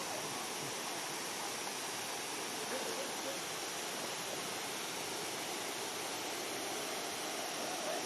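Thi Lo Su waterfall: the steady, unbroken rush of a large volume of falling water.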